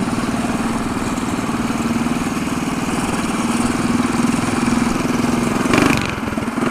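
Mini bike's small engine running steadily under way, heard from the rider's seat with wind rushing over the microphone; a brief louder burst just before the end.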